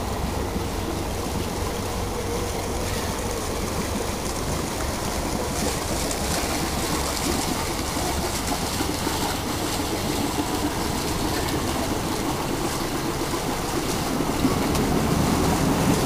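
Steady low rumble of a lifeboat's engine idling while the boat lies moored, mixed with water and wind noise. It grows a little louder near the end.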